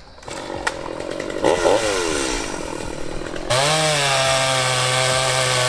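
Chainsaw running: a brief rev that falls away about a second and a half in, then opened up to full throttle about three and a half seconds in and held steady as it cuts into wood.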